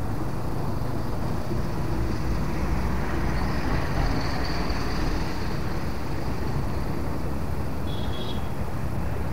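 Steady low outdoor rumble with no clear single source, with a faint high whine in the middle and a brief high chirp near the end.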